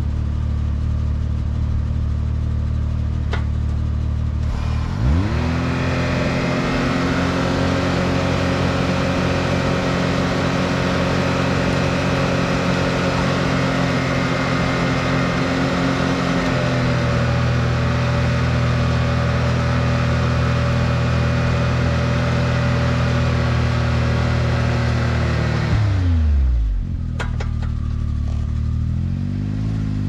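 Can-Am Maverick X3's turbocharged three-cylinder engine idling, then revved up about five seconds in and held at steady high revs for some twenty seconds as the side-by-side pulls on a rope tied to a downed tree. The revs fall back toward idle about four seconds before the end and begin to rise again.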